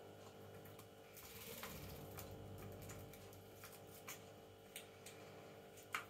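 Faint, scattered clicks and taps of pet parrots' beaks and claws on toys and a plastic tub, the sharpest near the end, over a low steady hum.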